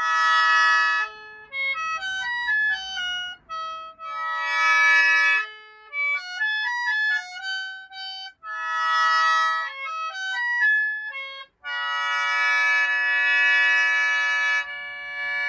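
A shō, the Japanese gagaku mouth organ of bamboo pipes with free reeds, playing a tune. Short runs of single reedy notes alternate with full sustained chords (aitake): one at the start, one about four and a half seconds in, one about nine seconds in, and a long held chord from about twelve seconds on.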